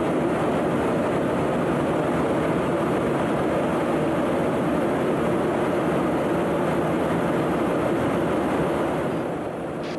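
Steady in-flight aircraft noise: a dense, even rush of jet engine and airflow sound, dropping a little near the end.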